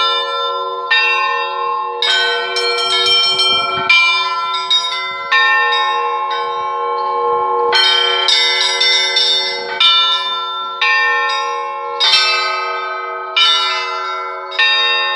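A set of Russian church bells rung by one ringer in a rhythmic pattern, with fresh strikes about every second over the long, overlapping ringing of the bells.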